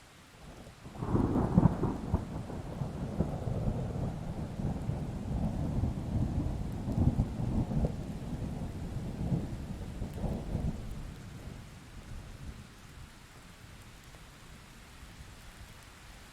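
A long peal of thunder over steady rain: a sudden loud crack about a second in, then low rumbling that surges several times and dies away over about ten seconds, leaving the rain hiss.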